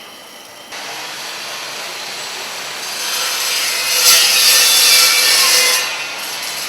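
A power tool working metal in a shop, starting abruptly less than a second in and running steadily. It grows louder and harsher in the middle for about two seconds as it bites into the work, then eases back.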